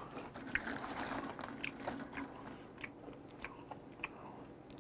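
Close-up mouth sounds of chewing steamed shellfish, with scattered small clicks as shells are handled and pried apart by hand.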